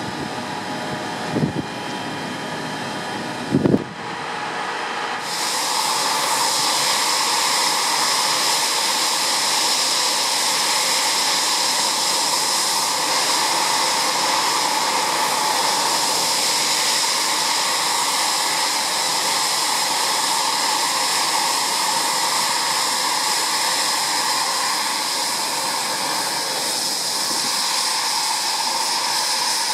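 A military jet's engines running on the ground: a steady high whine over a loud hiss, coming in suddenly about five seconds in. Before that, a quieter hiss with two short knocks.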